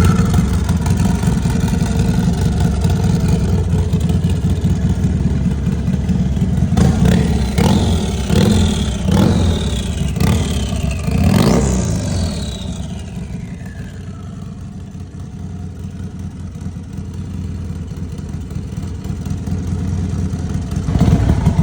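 Turbocharged Harley-Davidson bagger's V-twin engine idling, then blipped about six times in quick succession, each rev bringing a rising turbo whistle. After the last rev the turbo whistle winds down in one long falling tone over about three seconds as the engine settles back to idle.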